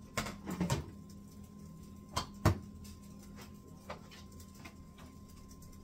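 Plastic fermenter bucket lid being handled: a few quick clatters near the start, then two sharper knocks a little over two seconds in, the second the loudest, followed by a few light ticks.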